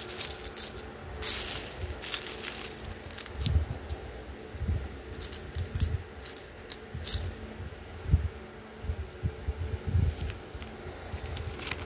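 Loose plastic building bricks clattering and clicking against each other as hands sift through a pile of them, in several short spells of rattling with dull knocks of handling between.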